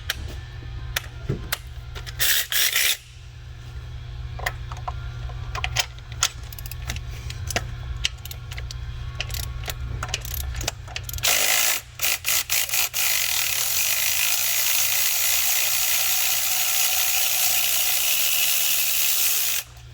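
Socket ratchet clicking in quick runs as spark plugs are worked out of the cylinder head. About halfway through, a loud, steady hiss takes over and runs for several seconds, then cuts off shortly before the end.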